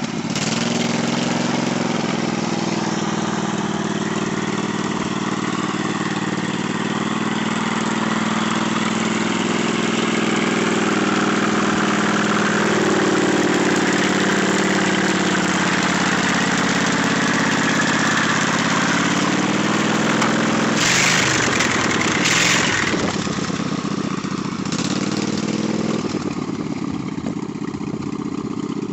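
Riding lawn mower's engine running under load as the mower churns through a mud bog, its pitch rising and falling with the throttle. About 21 seconds in come two short hissing bursts, and after that the engine note wavers unevenly as it works through the mud.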